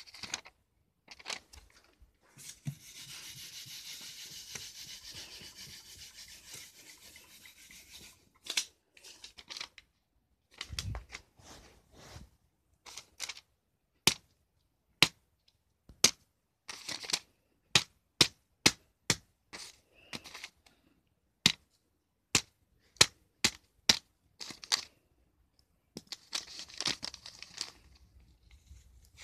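A paper disc being torn and rubbed: several seconds of steady rasping tearing, then a run of sharp clicks about once a second, then more tearing near the end.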